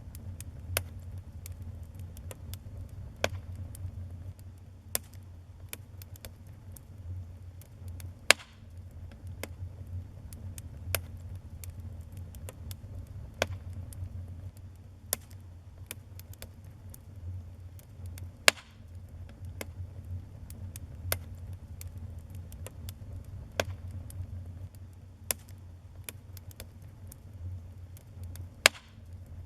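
Wood fire burning in a fireplace: a low steady rumble of flames with irregular crackles and snaps, a few of them loud pops.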